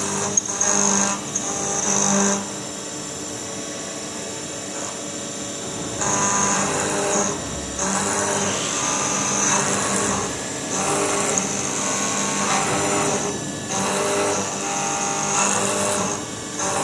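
CNC machining center at work: a high machine whine with cutting noise that swells and eases in passes. It drops back for a few seconds after the first two seconds, then comes back up.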